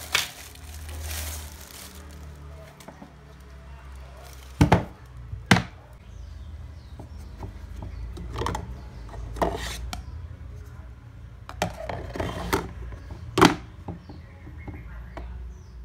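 Clear plastic bag crinkling as a plastic bathroom shelf is unwrapped, then a series of sharp knocks and clicks, about seven in all, as its hard plastic parts and cups are handled and set down.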